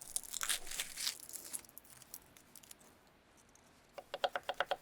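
Salt sprinkled into a jar with a light, grainy crackle, then about a second before the end a knife starts chopping fast on a cutting board, about eight to ten strokes a second.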